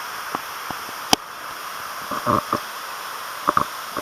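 Steady rushing of a waterfall. A sharp click comes about a second in, followed by a few short knocks and scuffs.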